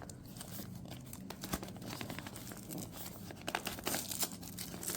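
Rustling and scattered small clicks of hands pushing a soft-shell tool caddy into a bottle cage and working its safety strap.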